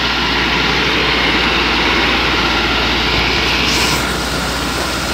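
Hino Dutro 4x4 dump truck's diesel engine running steadily under load as the truck drives through mud, carrying a full load of about 7–8 tons. The drone's higher hiss changes and the level dips slightly about four seconds in.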